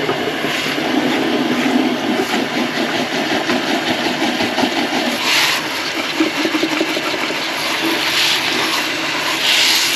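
Kitchen faucet running steadily into an air filter held under the tap over a steel sink, a continuous rush of water. There are moments of louder splashing about halfway through and twice near the end.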